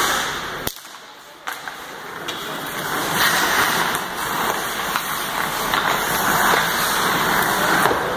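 Ice hockey play on a rink: a steady hiss of skate blades scraping the ice, with an occasional sharp click of stick or puck. The sound drops off briefly about a second in, then returns louder.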